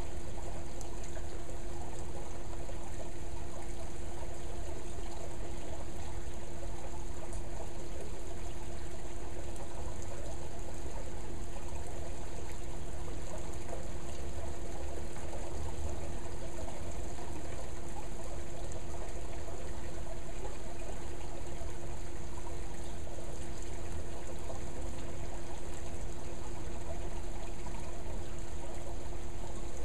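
Water trickling and pouring steadily without a break, over a steady low hum.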